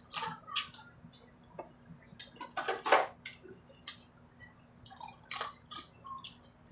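Close-up eating sounds: irregular wet clicks and crackles of blue crab shells being picked apart by hand, with chewing and lip smacks, a louder cluster about three seconds in.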